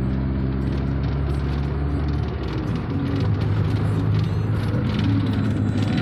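Vehicle engine running steadily, heard from inside the cabin with road noise and interior rattles; the engine note changes about two seconds in.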